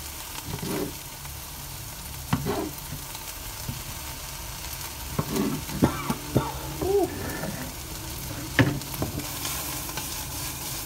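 Food frying in a pan with a steady sizzle. A few sharp knocks of a knife on a chopping board come through as a pepper is cut into strips.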